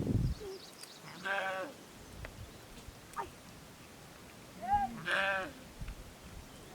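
Sheep bleating: two wavering bleats, one about a second in and another about five seconds in, with a short call just before the second.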